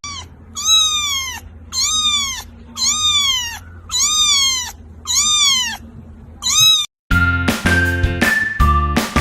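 A domestic cat meowing over and over, roughly once a second, each meow rising and then falling in pitch. The last meow is cut off about seven seconds in, and background music with plucked notes takes over.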